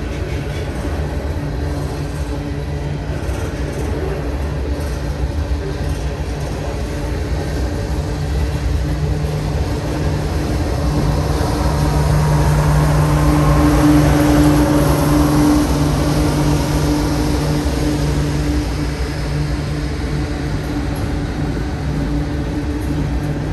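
Freight train cars rolling past: a continuous rumble of steel wheels on rail with a steady low drone. It swells louder for several seconds around the middle, then eases back.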